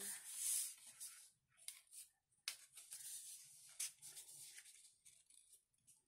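Quiet paper rustling and rubbing as hands handle and press a patterned paper strip onto a paper envelope, with a few sharper crinkles.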